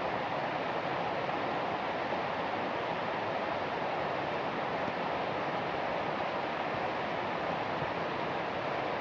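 Steady rain falling outdoors: an even, unbroken hiss with no separate drops or other events standing out.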